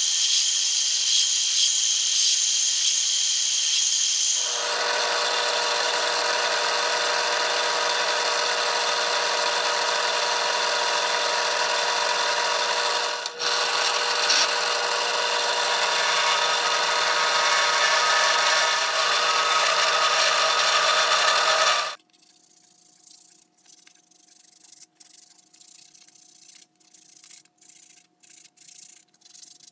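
A bench belt sander runs while a wooden knife handle is pressed against the belt. After about four seconds it gives way to a drill press running, its bit cutting a slot into the wooden handle held in a vise, with a brief break midway. About two-thirds of the way through the machines stop, and the handle is rubbed by hand with sandpaper in short strokes.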